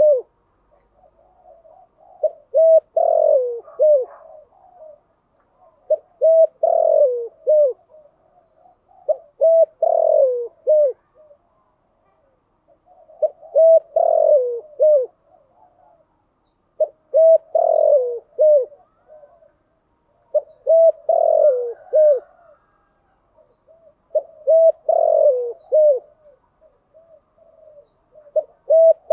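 Spotted dove cooing in repeated phrases, each a run of short coos ending in a longer note, about every three to four seconds.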